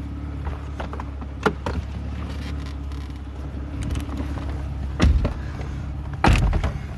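Someone getting into a 2004 Mercedes-Benz C320: small knocks as the door is handled, a loud thump about five seconds in, then the door shutting about a second later, over a steady low hum.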